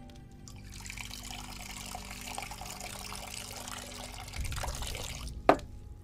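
Liquid pouring steadily into a ceramic bowl for about four and a half seconds, then a single sharp knock about five and a half seconds in.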